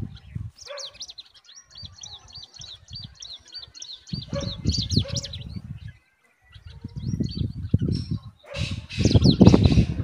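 Bulbul nestlings begging while a parent feeds them at the nest: a fast run of short, high, repeated chirps through the first half, then several bursts of low rustling and fluttering, the loudest near the end.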